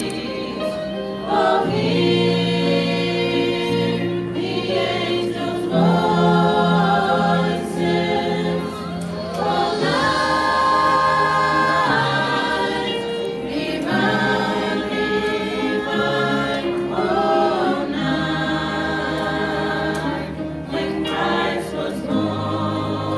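Small mixed choir of women's and men's voices singing together in harmony, holding long chords that change every couple of seconds.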